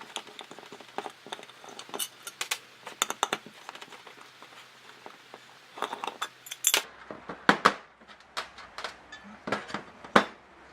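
A metal chainsaw muffler being handled: a string of light metallic clinks and knocks.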